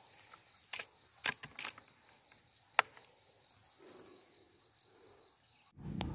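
Sharp metallic clicks from a PCP air rifle being handled, five of them in the first three seconds, over a steady high drone of insects. A louder sound cuts in near the end.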